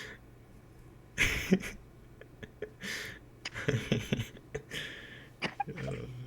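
Quiet, breathy laughing: a string of short exhaled bursts, with a little voice in some of them.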